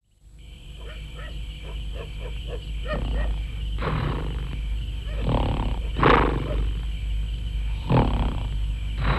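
A man snoring in his sleep: a run of snores that grow louder from about the middle, over a steady low hum.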